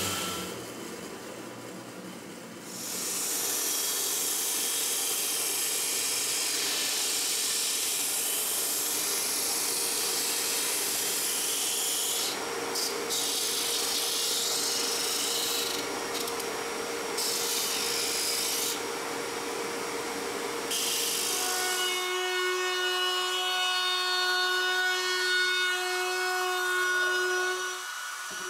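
A shop-made disc sander grinding the edge of a plywood piece with a loud, even hiss. The hiss thins briefly three times as the work is eased off the disc. About 22 seconds in, an Einhell trim router takes over with a steady high whine as it routs the plywood edge.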